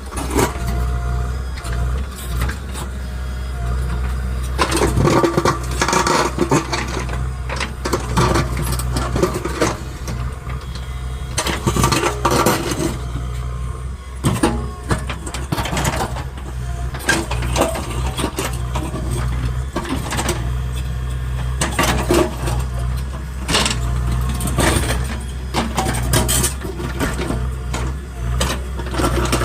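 JCB 3DX backhoe loader's diesel engine running steadily under work, with repeated sharp knocks throughout.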